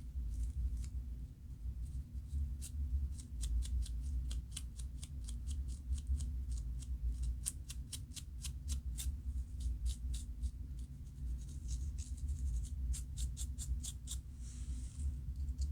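Scratching at the scalp to loosen dandruff flakes: quick, dry, sharp scratch strokes, several a second, in runs with short pauses, over a steady low hum.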